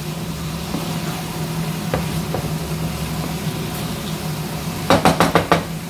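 Chicken pieces and onions frying and sizzling in a pan as they are stirred with a wooden spatula; near the end the spatula knocks and scrapes against the pan in a quick run of about six strokes. A steady low hum sits underneath.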